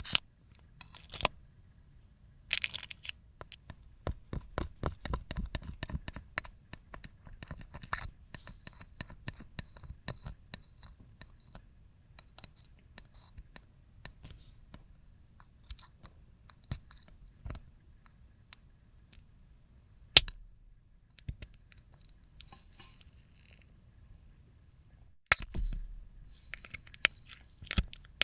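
A film of dried slime being peeled off a plate: crackling and tearing in bursts of many small sharp clicks, with quieter pauses between pulls, one loud single crack about twenty seconds in, and a fresh burst of crackling near the end.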